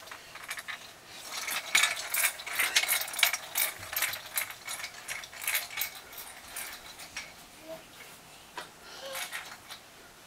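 Toddler's pull-along snail toy rolling over carpet, its wheels making a rapid ratcheting clatter. The clicking is dense for most of the time and thins to a few scattered clicks near the end.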